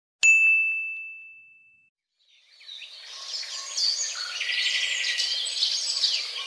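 A single bright ding struck once, ringing on one high tone and fading away over about a second and a half. Then birds chirping fade in and grow steadily louder.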